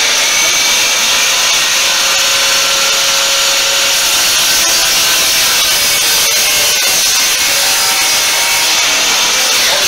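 DeWalt chop saw running and cutting through scrap wood, a loud steady whine with the noise of the blade in the wood, dying away near the end.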